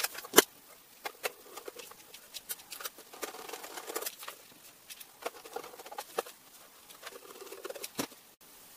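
Metal case lid of a small network appliance being fitted back on and screwed down with a compact screwdriver: a sharp click about half a second in, then scattered light clicks and rubbing, and another click near the end.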